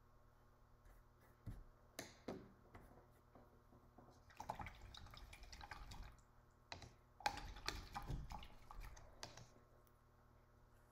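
Paintbrush swished in a cup of rinse water: a few soft clicks, then two swishing spells of about two seconds each.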